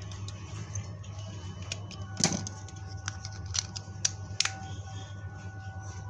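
Sharp plastic clicks and taps from handling and reassembling a small plastic keypad phone with a small screwdriver, the loudest about two seconds in and three lighter ones a little later, over a steady low hum.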